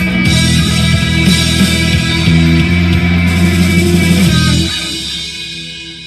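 Rock intro music led by electric guitar with bass, fading out over the last second or so.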